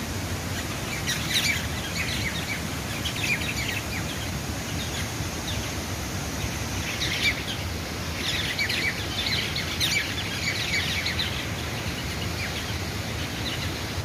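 Small birds chirping in short runs of quick, high calls, scattered through and busiest for a few seconds past the middle, over a steady rushing background noise.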